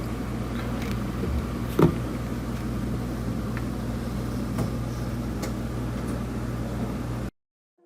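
Steady low mechanical hum, with a few light clicks and one sharp knock about two seconds in; it cuts off suddenly near the end.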